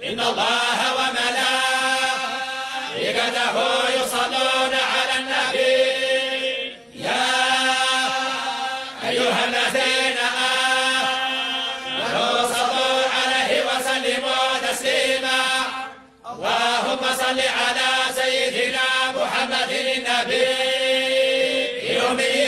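Islamic devotional chanting of blessings on the Prophet (salawat), sung in long, drawn-out, ornamented phrases with brief pauses about seven and sixteen seconds in.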